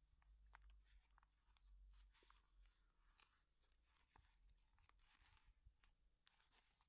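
Near silence, with faint rustling and small clicks from an instruction leaflet and packaging being handled.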